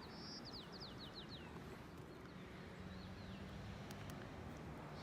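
Small songbird singing a quick series of falling chirps, then a few fainter chirps, over a steady low outdoor rumble.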